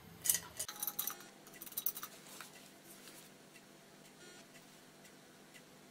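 A few faint clicks and light taps in the first two seconds, then scattered soft ticks: a makeup brush and compact eyeshadow palette being handled as the brush is loaded with shadow.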